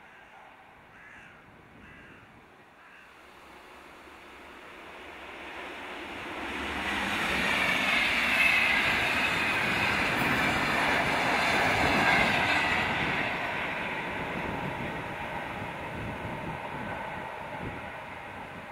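Electric locomotive-hauled passenger train with double-deck coaches passing at speed. The rumble of wheels on rail builds from about four seconds in, is loudest through the middle, and fades as the train draws away.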